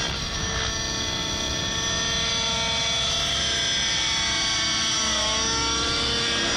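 T-Rex 700 radio-controlled helicopter with a two-stroke petrol engine, flying with its engine and rotor running steadily. The pitch dips and recovers briefly about five seconds in.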